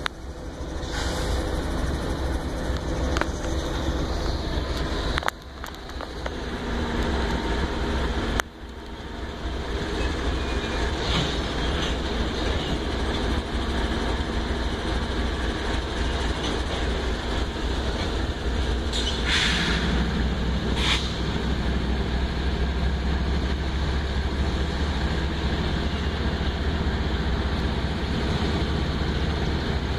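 CSX diesel locomotives rumbling steadily as they pull a freight train slowly past, wheels rolling on the rails. Two short high squeals sound about two-thirds of the way through.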